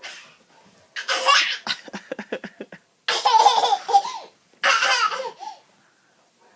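A person laughing hard in several fits, one of them a quick run of short ha-ha pulses.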